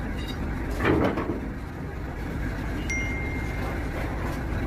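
Steady low background rumble with a short louder noise about a second in, then a single clear ringing tone, like a chime, that starts sharply near the end and rings on for about a second.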